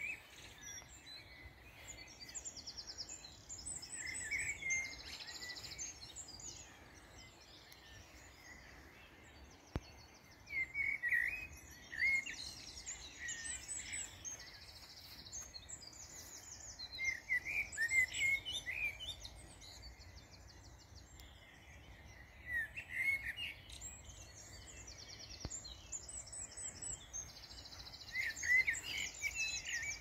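Songbirds singing in phrases a few seconds apart, each phrase with lower whistled notes and a fast high twitter, over a faint steady background hiss.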